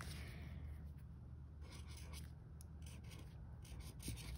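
Pen writing on notebook paper: faint, short scratching strokes coming one after another.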